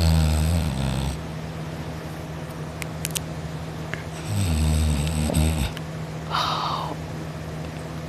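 A man snoring in his sleep: two low snores about four seconds apart, each a little over a second long, with a breathy puff of air soon after the second.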